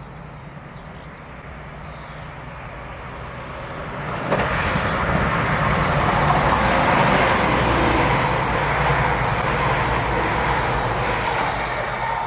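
East Midlands Railway Class 222 Meridian diesel multiple unit approaching and passing the platform: engine drone and wheel-on-rail noise growing steadily louder, with a sudden jump about four seconds in, then staying loud as the train goes by.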